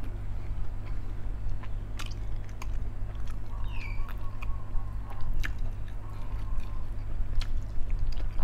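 Close-up chewing and lip smacking of a man eating chicken off the bone, with a few sharp clicks, over a steady low hum. A short high falling chirp comes about four seconds in.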